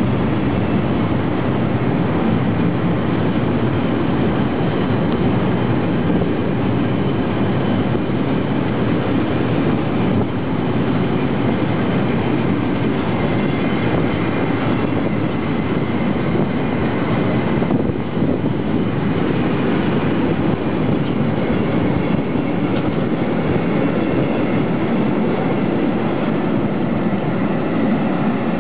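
Freight train of sliding-wall covered wagons rolling past at close range: a loud, steady rumble of steel wheels on the rails.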